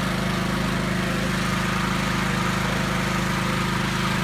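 Pressure washer's engine running steadily at an even speed.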